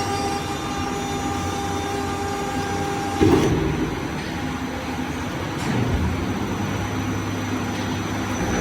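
350-tonne servo hot-forging hydraulic press running: a steady machine hum with a high whine, then a sudden heavier surge about three seconds in as the whine stops, and a lighter swell near six seconds.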